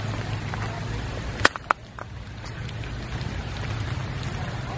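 Steady outdoor background noise with a low rumble, broken by two sharp clicks about a second and a half in, after which it is briefly quieter.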